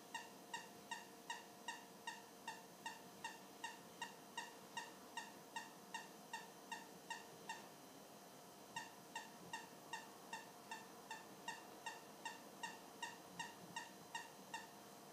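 Short high squeaks repeating evenly about three times a second, with a pause of about a second midway, as a mastiff mouths and suckles the plush toy he is hugging.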